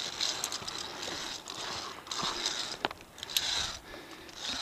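Via ferrata lanyard carabiners scraping and clicking along the steel safety cable, in short stretches with a few sharp metal clicks.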